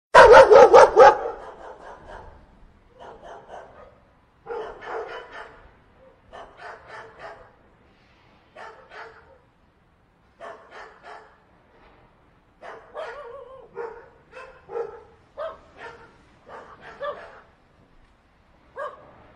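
Dogs barking and yipping: a loud, rapid burst of about half a dozen barks at the start, then repeated quieter clusters of short barks and yips every second or two.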